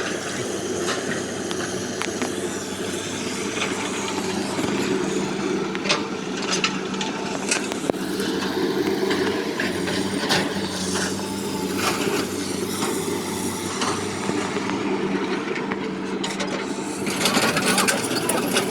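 A diesel engine of heavy construction machinery running steadily, with scattered short metallic clanks and knocks.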